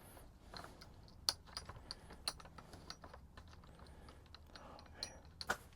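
Faint, scattered small clicks and taps of a washer and nut being handled and tried onto the hub's threaded rod. The rod's tip is damaged, so the nut won't start.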